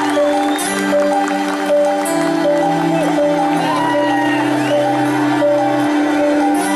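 Live rock band performing, with acoustic guitars on stage: a quick repeating melody of short notes over held low notes that shift every second or two.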